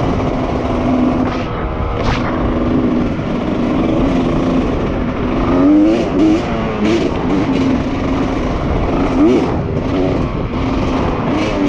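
Honda CR250R dirt bike's 250cc two-stroke single-cylinder engine running under way, its pitch rising and falling as the throttle is worked, with a few quick revs in the middle and later on.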